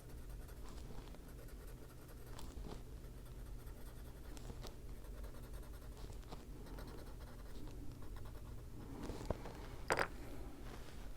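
Prismacolor coloured pencil scratching softly on paper in short strokes as an area is coloured in, with a sharper click about ten seconds in.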